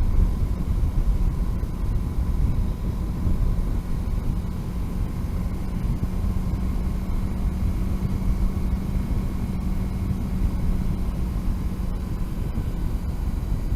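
Motorcycle riding at a steady cruise: an even engine drone with rumbling wind and road noise.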